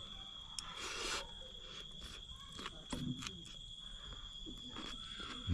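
Insects trilling in one steady high tone, with a few light clicks and a short scrape about a second in.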